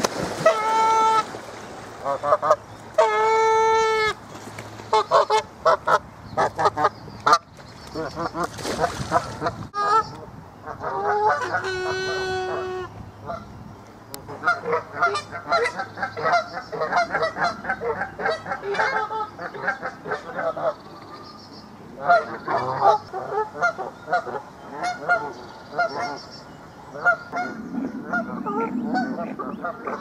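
Canada geese honking: two long, loud honks in the first few seconds, then a long run of short, rapid honks and calls.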